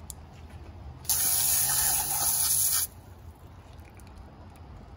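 Garden hose spray nozzle squeezed on in one burst of about two seconds, rinsing a dressed pheasant; a loud water hiss that starts and stops abruptly.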